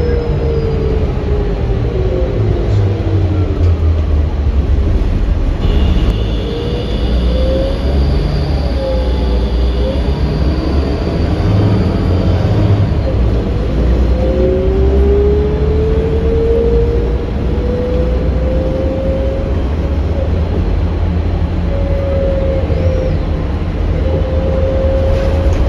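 Cabin sound of a 2008 New Flyer D40LF diesel city bus under way: a steady low engine and road rumble, with a drivetrain whine that falls as the bus slows and climbs again as it picks up speed.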